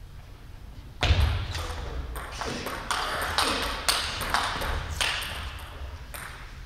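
Table tennis rally: the ball clicking off the rubber bats and bouncing on the table, starting with the serve about a second in and going at about two hits a second until the point ends about five seconds in.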